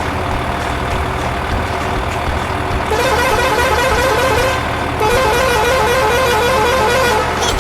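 Vehicle engine rumbling steadily. From about three seconds in, a fast-warbling vehicle horn sounds twice, with a short break between.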